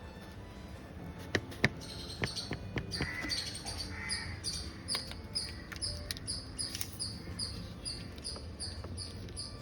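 Short high-pitched chirps repeating evenly, about two or three times a second, starting about two seconds in, over a low steady rumble. Several sharp clicks and taps come in the first few seconds.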